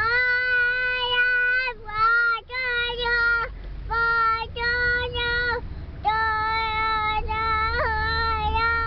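A toddler girl singing wordlessly in long, held notes at a steady high pitch, in four phrases with short breaths between, the last one long with a small wobble near the end. A low car rumble runs underneath.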